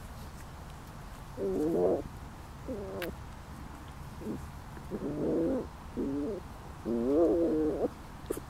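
Almost five-week-old doodle puppies growling and grumbling as they wrestle in play: about six short, wavering growls over several seconds, the last one the longest.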